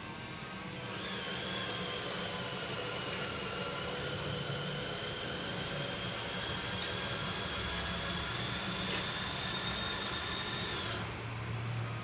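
LEGO Power Functions electric motors and gear train running with a steady whirring whine as they unfold a scissor-type bridge. The whine starts about a second in and cuts off about a second before the end, with a couple of faint clicks along the way.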